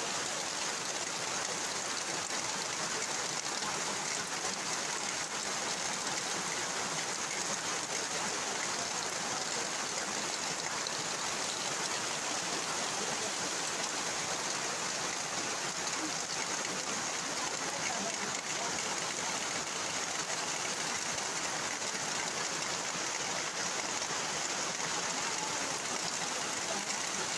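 Heavy rain falling steadily, a constant even hiss with no breaks.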